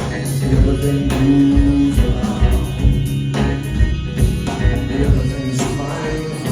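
Rock band playing live, a full band sound with a heavy low end and a steady beat.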